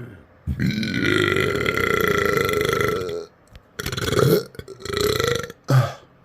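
A person burping: one long burp lasting about two and a half seconds, then two shorter burps and a brief final one near the end.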